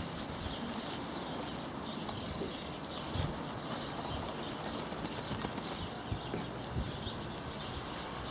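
Wind on the microphone: a steady rush with a few scattered low thumps.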